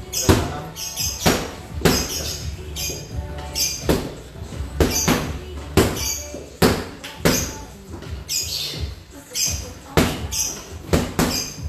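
Boxing gloves smacking a trainer's focus mitts in quick combinations, about two sharp hits a second, with short hissing sounds between some of the punches.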